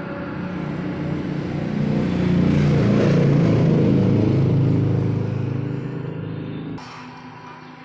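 A passing motor vehicle's engine rumble, swelling to a peak a few seconds in and then fading away.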